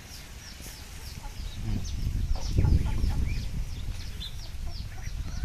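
Birds chirping: many short, high, falling chirps, several a second, over a low rumble that swells about two to three seconds in.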